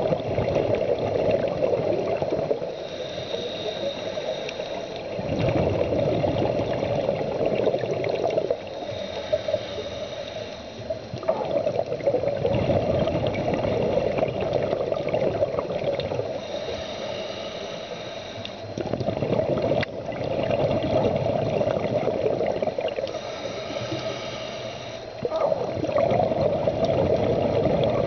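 Scuba diver breathing through a regulator, heard underwater. There are about four slow breaths, each a hissing inhale followed by a longer, louder rush of bubbling exhaust.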